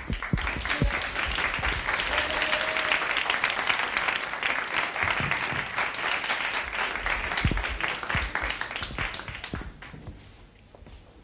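Audience applauding, a dense crowd of hand claps that dies away near the end.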